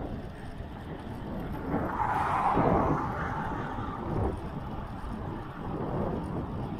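Wind rushing over the microphone of a camera on a moving bicycle. A louder rushing swell builds about two seconds in and fades out by about four seconds in.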